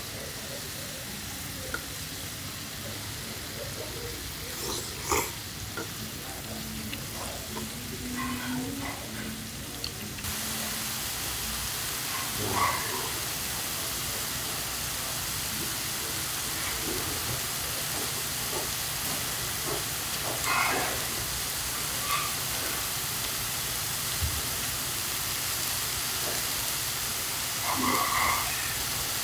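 Pork slices, king clam and bean sprouts sizzling on a hot flat griddle: a steady hiss that turns suddenly louder about ten seconds in. A few short clicks and knocks of tongs and chopsticks stand out above it.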